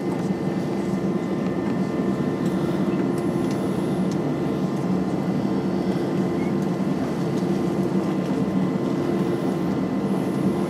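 Steady cabin drone of an Airbus A320-232 taxiing, its IAE V2500 engines running at low taxi power, heard from inside the cabin, with a constant low hum and a faint high whine.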